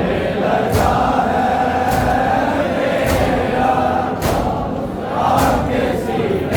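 A group of men chanting a Muharram nauha in unison. A sharp, regular beat of matam (hands striking chests) falls about once every second and a bit, keeping time with the lament.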